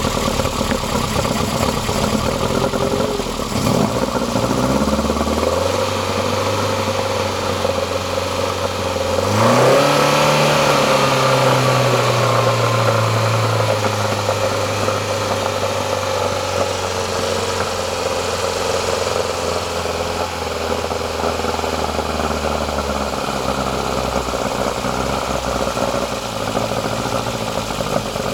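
BMW M10 four-cylinder engine on dual Weber 45 DCOE carburettors, idling. The idle rises a little about four seconds in. About nine seconds in the engine is revved briefly, and the revs then ease slowly back down to idle.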